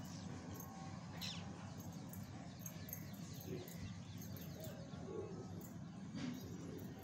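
Domestic pigeons feeding on grain on a concrete floor: faint scattered pecking taps and a couple of soft bird calls over a steady low background rumble.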